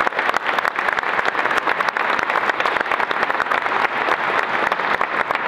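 Audience applauding: a large crowd clapping, dense and steady.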